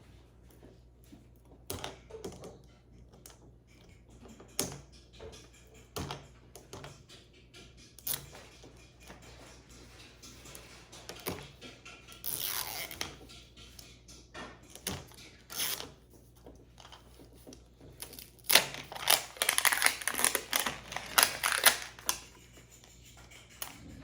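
Plastic wrapping being torn and handled while a Mini Brands toy capsule is opened: scattered small clicks and rustles, with a louder spell of tearing and crinkling near the end.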